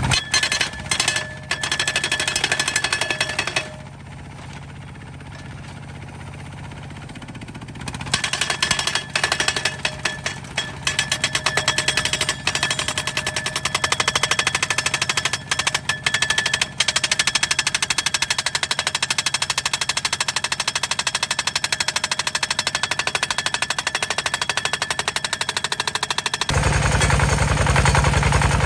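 Homemade hydraulic pile hammer rapidly pounding a steel fence post into the ground, with the D15 single-cylinder diesel engine that drives its hydraulics running underneath. The hammering stops for about four seconds around four seconds in, then resumes. Near the end it stops, leaving the diesel engine running on its own.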